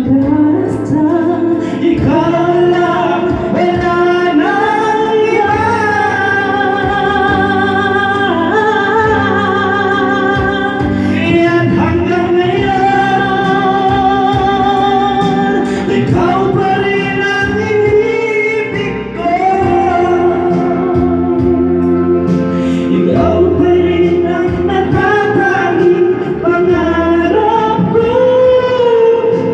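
Karaoke duet: singers with handheld microphones, amplified through a PA over backing music, holding long notes with vibrato. There is a short drop in loudness about two-thirds of the way through.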